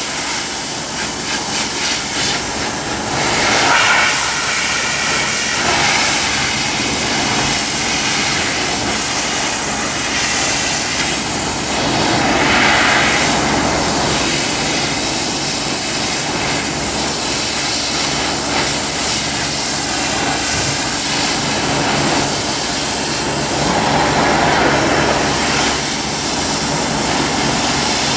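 Pressure-washer wand spraying a metal kitchen exhaust fan: a loud, steady hiss of the water jet with a low steady hum underneath. The hiss swells three times as the spray moves across the fan.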